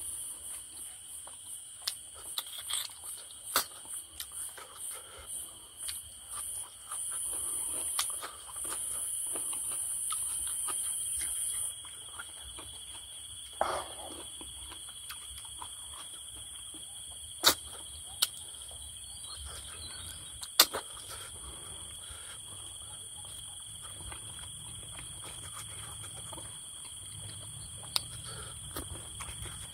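Crickets and other insects chirring steadily, a high shrill drone that drops quieter about twelve seconds in, over a steady thin trill. Scattered sharp clicks and a short sucking sound a little before halfway, the noises of eating snails.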